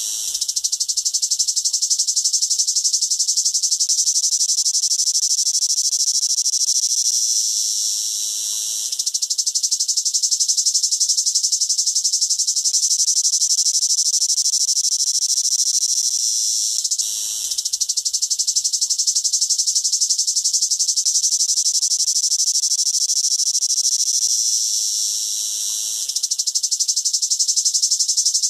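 Cicada singing: a loud, continuous high buzz made of very rapid pulses, which dips three times and swells back up.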